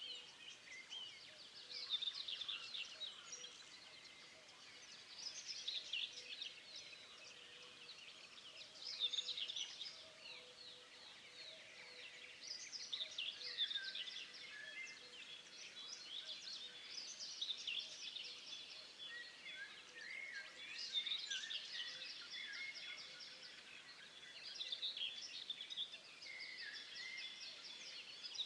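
Several birds singing and chirping together: a continuous chorus of short high calls and quick trills.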